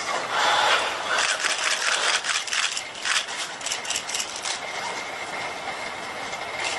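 HRP-4 humanoid robot's joint motors working as it raises its arms: a rapid clicking, rattling whir for the first four and a half seconds or so, over a steady high whine.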